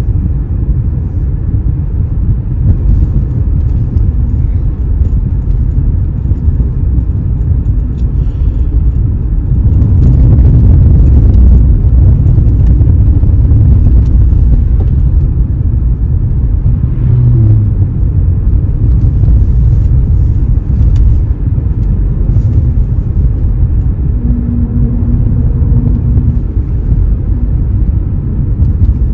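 Car interior road noise while driving: a steady low rumble of tyres and engine, growing louder for a few seconds near the middle.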